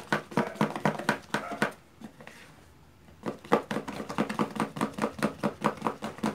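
Plastic spoon stirring thick fluffy slime in a plastic tub: rapid, even strokes of clicking and squelching as the activator is worked into the glue and shaving-cream mix, pausing briefly about two seconds in. The slime is not yet activated and still wet and sticky.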